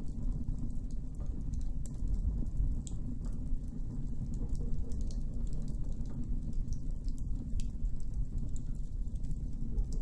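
Campfire burning, with scattered small crackles and pops over a low steady rumble.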